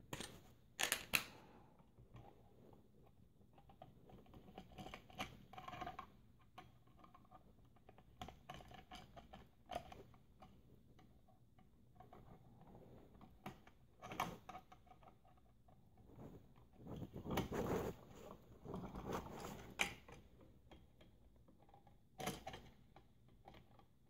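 Quiet handling sounds of a screwdriver and wires at a light switch's screw terminals: scattered small clicks and scrapes, with a longer stretch of rustling and scraping past the middle.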